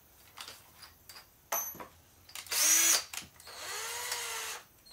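Cordless drill driving 2-inch deck screws into an OSB subfloor, running in two short bursts with a whine that rises and falls each time, the first the louder. A sharp click comes just before the first burst.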